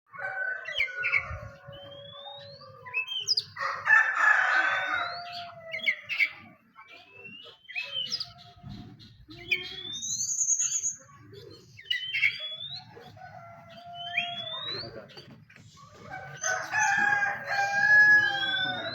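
Oriental magpie-robin singing a varied, loud song of short rising whistles and quick phrases. Twice, at about 4 s and again near the end, a louder crow-like call like a rooster crowing is heard, over a low background rumble.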